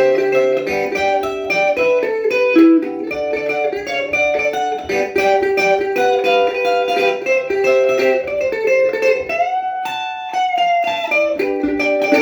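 Electric guitar played through a small battery-powered Blackstar practice amp on its clean channel, turned all the way up: a run of single-note melody lines, with one note bent upward and held about nine and a half seconds in.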